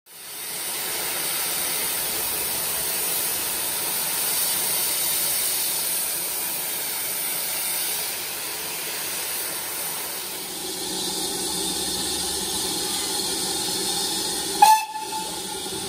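Steady hiss of steam from BR Standard Class 4 2-6-4 tank engine 80097, blowing off from its safety valves. A brief, sharp, loud sound breaks in near the end.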